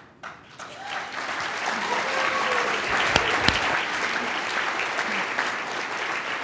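Audience applauding, swelling over the first second and holding steady, with a few voices calling out. Two sharp knocks stand out about three seconds in.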